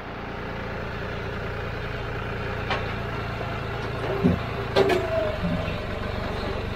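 John Deere 5065 tractor's diesel engine running steadily at low speed, heard from the driver's seat, with a couple of sharp knocks and a dull thump around the middle.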